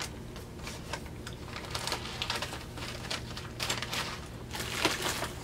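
Rustling and crinkling of a paper gift bag and the packets inside it as hands rummage through it: a run of small crackles and clicks, busiest about two seconds in and again about four seconds in.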